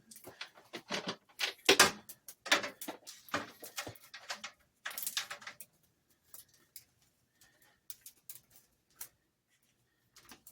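Knife blade cutting and scraping through old electrical cord insulation in short strokes, a quick run of rasping scrapes that thins out about halfway to a few scattered clicks.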